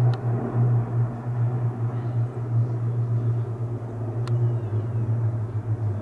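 Steady low drone of a formation of small aircraft flying overhead, with two brief clicks, one near the start and one about four seconds in.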